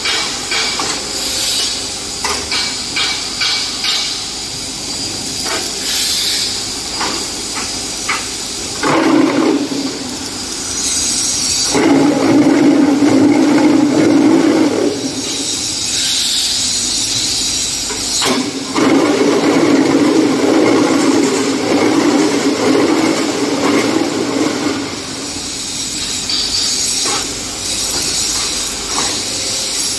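A QTJ4-25D automatic concrete block making machine working through its moulding cycle: rattling metal clanks early on, hisses, and three spells of loud steady humming lasting a second to several seconds as the mould vibrates to compact the concrete.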